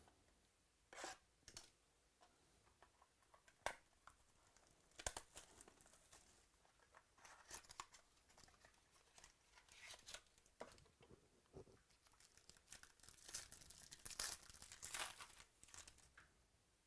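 Faint tearing and crinkling of trading-card packaging as a sealed card box is opened, with irregular rustles and a few sharp clicks.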